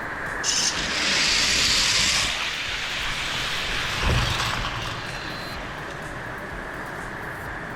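Heavy rain coming down steadily. About half a second in, a row of diecast toy cars is released and rolls down the track with a bright rattling hiss for about two seconds, followed by a low thump about four seconds in.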